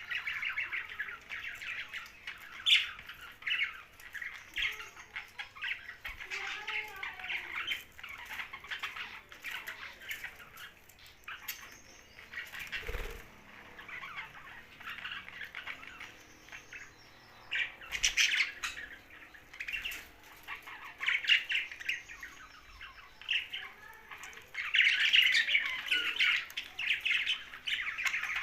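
Young budgerigars chattering and squawking in quick, dense runs of notes, busiest and loudest near the end.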